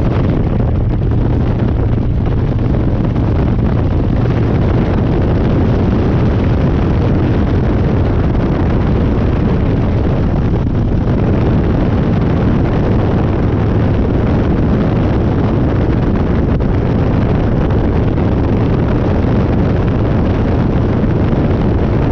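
Harley-Davidson Dyna's V-twin engine running at a steady pace under way, with heavy wind noise on the microphone.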